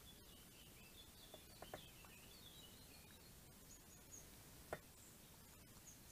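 Faint bird chirps over a steady low hiss, with a few short sharp clicks as a raccoon eats dry pellets from a stainless steel bowl; the loudest click comes about three-quarters of the way in.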